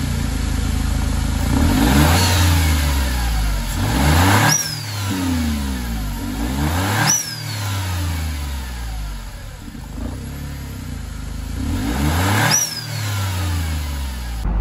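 Smart ForTwo 450's small turbocharged three-cylinder engine revving up four times. Each time the throttle is released, the aftermarket blow-off valve vents with a sharp burst and a short falling whistle.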